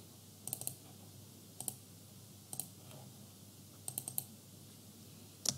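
Computer mouse clicks, single and paired, about a second apart over faint room hiss, with a quick run of clicks near four seconds in.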